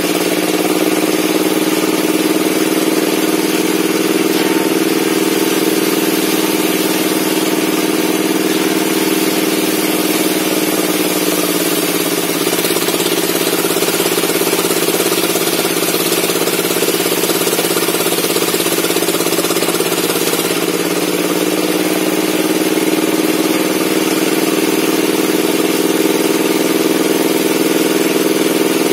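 Log-sawing circular saw bench running steadily with a loud hum; midway its note sags for about ten seconds under a hiss, as the blade is loaded by a cut through wood, then it climbs back.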